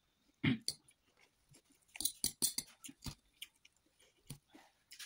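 A person eating chow mein noodles: a loud slurp of noodles about half a second in, then a run of wet chewing and mouth clicks, densest between two and three seconds in.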